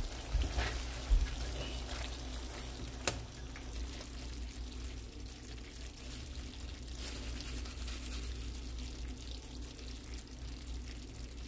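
Creamy pasta sauce bubbling in a skillet as tongs toss spaghetti through it, with a few sharp clicks of the tongs against the pan in the first three seconds.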